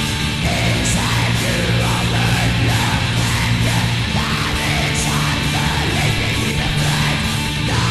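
Black metal song: a dense wall of distorted guitar over drums and a steady low bass line, with a cymbal hit roughly once a second.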